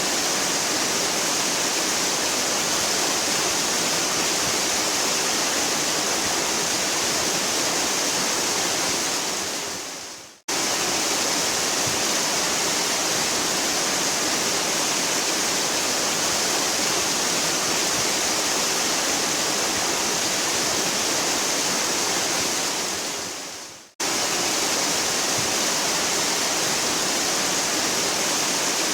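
Waterfall running steadily, a thick, even rush of falling water. Twice, about ten seconds in and again near 24 seconds, it fades away over a second or so and then cuts straight back in at full strength.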